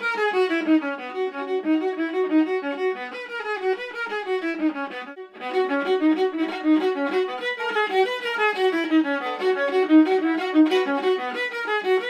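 Solo violin playing a continuous run of quick notes that move back and forth across the strings, with a short break about five seconds in.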